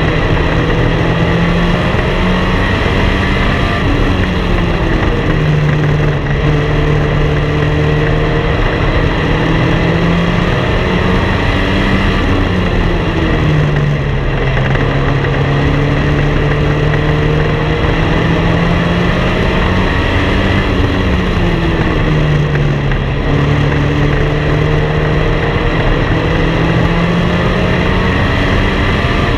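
Race car engine at racing speed on an oval, its pitch climbing and then dropping back in long sweeps about every eight seconds as the car goes through the laps. The engines of the modifieds running close behind are mixed in.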